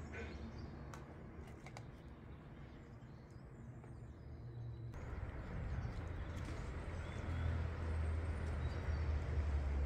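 Outdoor background noise: a low rumble under a steady hiss, with the rumble growing louder over the last few seconds.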